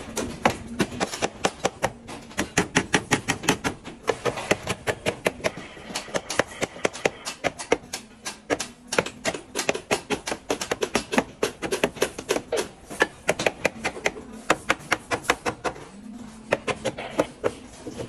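Rapid, light hammer strikes on wooden stair formwork, several a second, coming in runs with a few short pauses.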